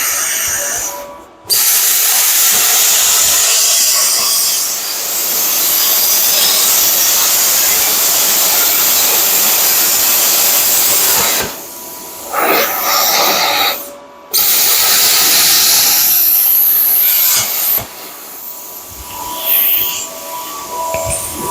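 Plasma cutter cutting through the steel frame rails, a steady loud hiss of the air and arc. It stops briefly about a second in, pauses again twice around the middle, and turns quieter and patchier near the end.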